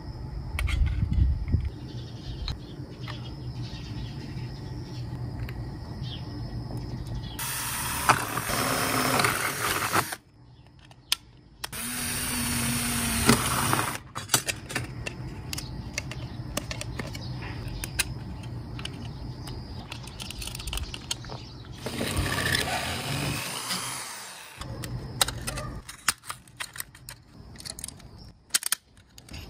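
Makita cordless drill boring into a thin stainless steel tray in three runs of a few seconds each, with clicks and clinks of metal parts being handled between the runs.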